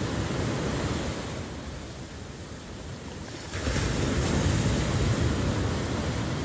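Ocean surf: waves washing on the shore, easing off in the first half, then a wave breaking suddenly about halfway through and rushing in.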